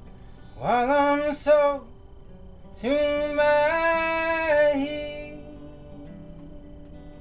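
A man singing two long held notes over a softly played acoustic guitar. The first swoops up into pitch about half a second in and lasts about a second. The second is held for about two seconds, and the guitar rings on quietly after it.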